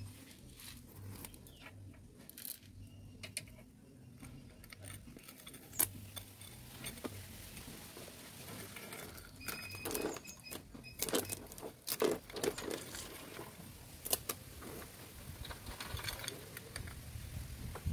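Motorcycle roller chain being handled and fitted onto the rear sprocket: loose metal links clinking and rattling in irregular clicks, busiest around the middle.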